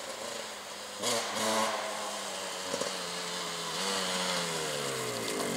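Honda CR125R motocross bike's two-stroke single-cylinder engine revving up about a second in, then running steadily as the bike comes closer, its pitch sliding down over the last couple of seconds.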